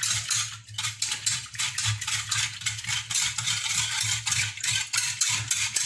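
A metal utensil stirring milk and custard powder in a saucepan, making quick, steady clinking and scraping strokes, several a second, as crème pâtissière is mixed.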